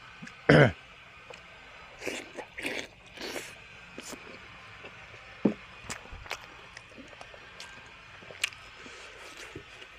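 Close-miked eating: a person chewing and crunching food with wet mouth sounds. There is one loud burst about half a second in, a run of crunches a couple of seconds in, and scattered small clicks and smacks after that.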